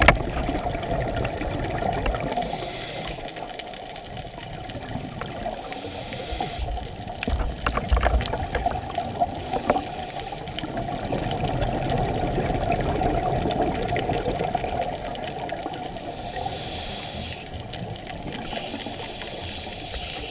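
Muffled underwater sound of a scuba dive: a steady wash of water, with several separate hissing breaths through the diver's regulator and bubbly exhalations between them.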